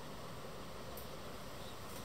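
Steady low hiss of room noise, with a faint click about a second in.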